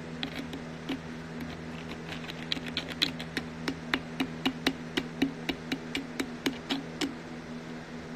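Smartphone keyboard clicks as someone types on a touchscreen: a few scattered taps, then a quick run at about four a second that stops about a second before the end, over a steady low hum.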